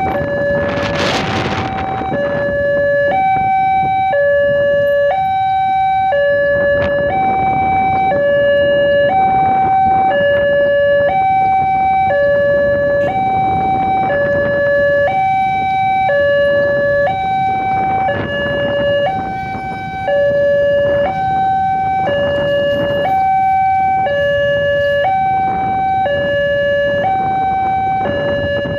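Railway level-crossing alarm sounding while the crossing is closed for an approaching train: a steady electronic two-tone signal that alternates between a lower and a higher tone about once a second. Road traffic noise from waiting vehicles runs underneath.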